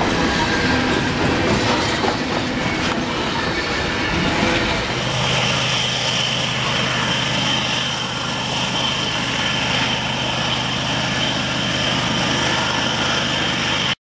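Freight train running past at close range: a Union Pacific double-stack container train's wheels clatter and knock over the rails. About five seconds in the sound changes abruptly to a steadier rumble with a low hum and a high whine, as a Union Pacific diesel locomotive leads a train toward the track-side.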